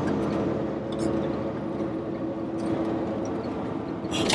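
Semi truck's diesel engine running steadily while driving, heard inside the cab as a low, even drone, with a brief hiss near the end.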